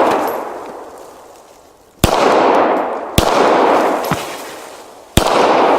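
Hudson H9 9mm pistol fired three times, a second or two apart, each shot trailing a long echo that dies away over one to two seconds. At the start, the echo of a previous shot is still fading.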